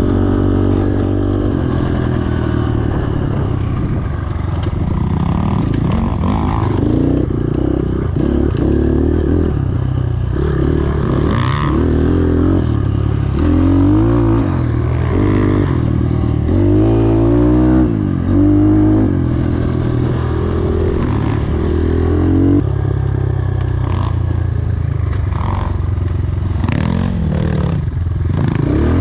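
Enduro motorcycle engine running under way, its pitch rising and falling again and again as the throttle opens and closes, with clattering over rough ground.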